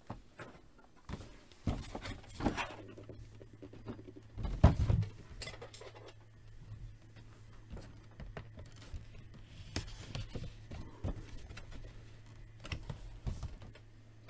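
Cardboard action-figure box being handled: scattered taps, scrapes and rustles as a fingernail picks at the tape on the box edge, with one louder knock about four and a half seconds in.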